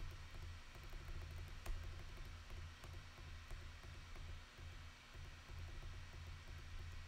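Quiet room tone with a low steady hum and a few faint computer clicks while photos are advanced, the clearest about two seconds in.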